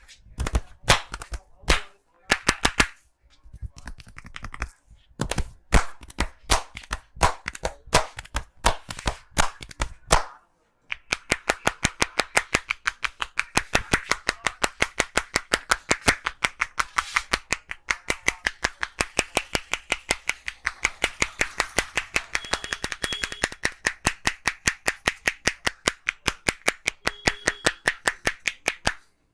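Hands striking the head and shoulders in a percussive Indian head massage: sharp slaps in uneven clusters for about ten seconds, then, after a short pause, a fast, even run of strikes, several a second, that stops suddenly near the end.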